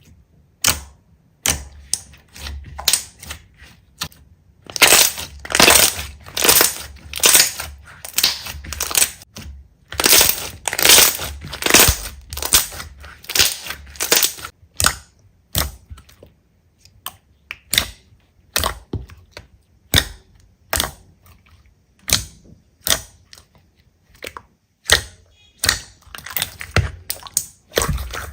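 Slime being squeezed and worked by hand, giving a run of short, sharp crackling pops, irregular and about one to three a second, loudest and most crowded through the middle.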